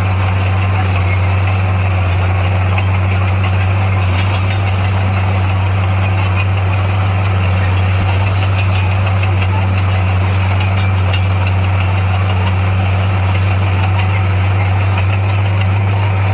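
Diesel engine of heavy earthmoving equipment running steadily at a constant pitch, with a deep, unchanging hum.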